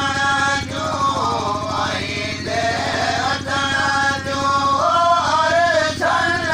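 Men's voices singing a chant, with long held notes that slide up and down in pitch, sung without a break.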